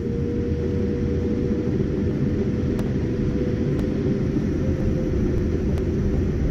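Passenger jet cabin noise while the aircraft taxis: a steady low rumble with a thin, steady engine whine that rises slightly about two-thirds of the way through, and a few faint ticks.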